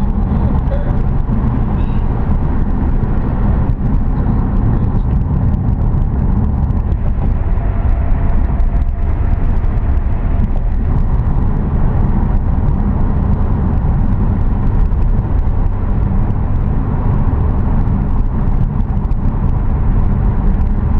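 Car driving along, with a steady low rumble of road and engine noise.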